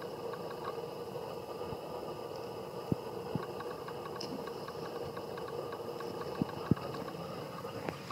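Steady background noise with a low hum, broken by four short sharp clicks, the loudest about two-thirds of the way through.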